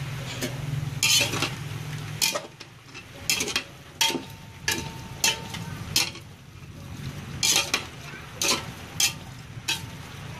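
Metal spatula stirring pork, potatoes and carrots in a metal pressure cooker pot, scraping and knocking against the pot again and again, over a light sizzle of frying.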